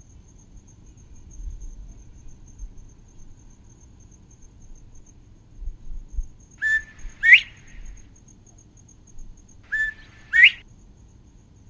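A bird calls twice, about three seconds apart, each call a short flat note followed by a louder upward-sweeping note. Under it runs a steady high insect trill, and a light breeze rumbles faintly on the microphone.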